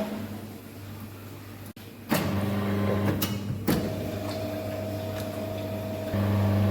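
French fries processing-line machinery running: a steady electric motor hum with a few sharp clattering knocks about two to four seconds in. The sound cuts off abruptly once and jumps louder near the end, as between separate shots of the machines.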